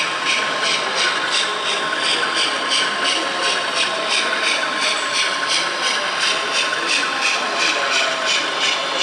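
O-scale model steam tram locomotive running slowly, with an even rhythmic chuff about four beats a second.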